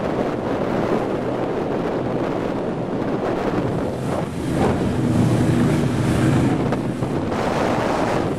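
Raider 26 powerboat with a 460 cubic inch Ford big-block V8 and Volvo Penta DPX sterndrive, running at speed through chop, with heavy wind buffeting the microphone and water rushing and spraying past the hull. The engine's steady drone grows louder about halfway through.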